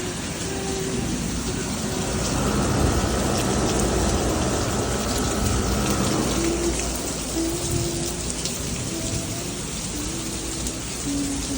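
Steady rain falling, an even hiss of drops that swells a little a couple of seconds in. Faint held tones at changing pitches sound through it.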